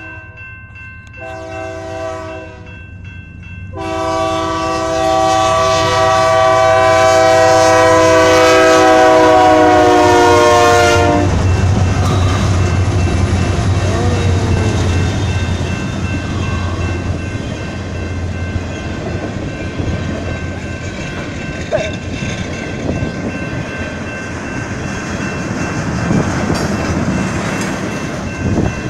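Horn of a GE C44-9W diesel locomotive leading a freight train: a blast that breaks off, a fainter one, then a long loud blast that drops in pitch as the locomotive passes and cuts off about eleven seconds in. After that, the rumble and clickety-clack of the freight cars rolling past.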